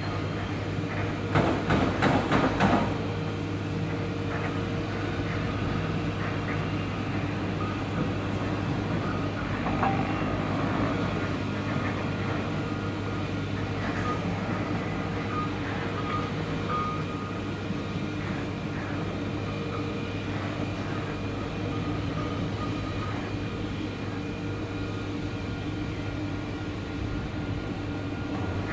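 Freight train locomotive running with a steady engine drone. A short burst of loud clanking comes between one and three seconds in, with lighter knocks later.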